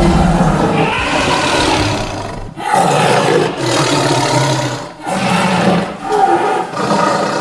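Loud creature roars from a cartoon fight between a woolly mammoth and a dinosaur, three long roars one after another, each about two and a half seconds.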